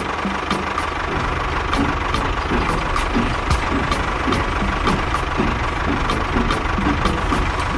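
Vehicle engine running steadily at idle, with a regular ticking about three to four times a second.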